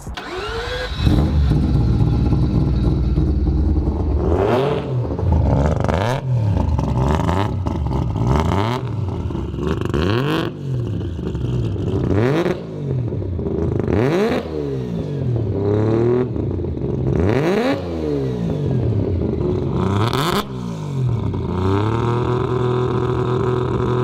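Three-rotor Wankel rotary engine in a Mazda RX-7, running loud and being revved in short, repeated blips, about ten in a row, each rising and falling back, before settling to a steady idle near the end.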